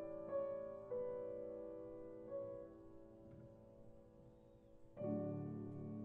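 Slow, soft background piano music: single held notes fade away one after another, then a fuller chord is struck about five seconds in.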